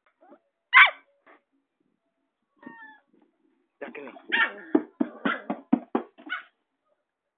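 A puppy barking, worked up: one sharp, loud yelp just under a second in, a short fainter call near the three-second mark, then a quick run of about seven yapping barks.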